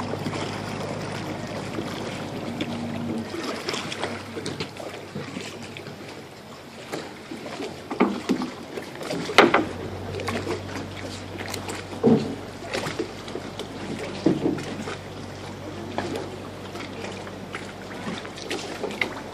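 A gondola being rowed with a single long oar through a narrow canal: water moving against the hull and oar, with a few sharp knocks scattered through it, over a steady low hum.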